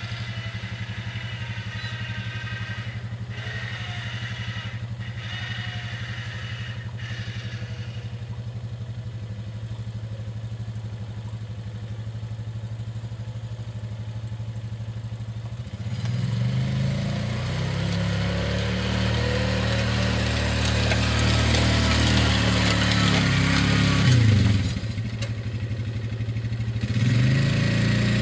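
ATV engine idling steadily, then revving up about halfway through as it pulls a disc harrow under load. The pitch rises and falls, dips briefly, then climbs again near the end.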